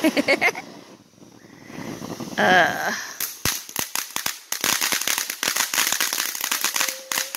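Ground fountain firework spraying sparks, breaking into a dense run of rapid crackling pops from about three seconds in. A person's voice calls out briefly at the start and again, loudest, about two and a half seconds in.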